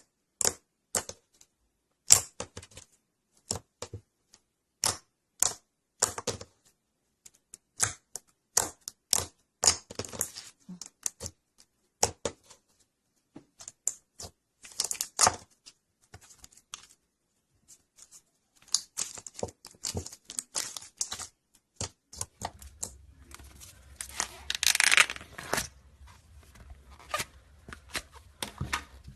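Slime being squished and poked by hand: sharp wet clicks and pops at irregular intervals, in small clusters, with a denser crackling stretch near the end.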